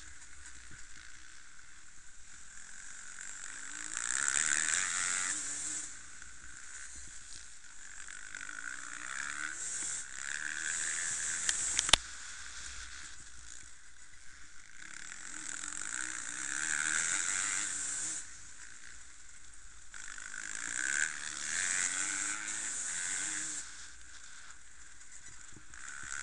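Enduro dirt bike engines on the move, revving up and easing off in swells every few seconds as the bikes ride the track. There is one sharp click about twelve seconds in.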